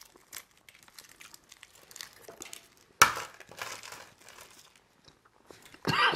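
Crackling and crinkling of hard-boiled eggshells being cracked and peeled by hand, in many small scattered bits, with one louder sudden noise about halfway through.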